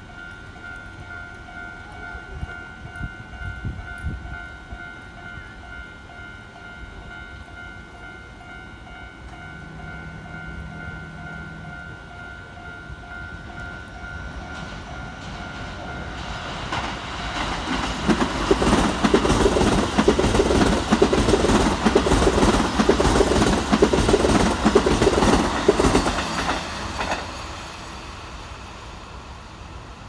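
Railway level-crossing warning bell ringing in a steady two-note pulse, then a red Keikyu electric commuter train passes close by from about halfway through, its wheels clattering in a regular beat over the rail joints and points for about ten seconds before fading.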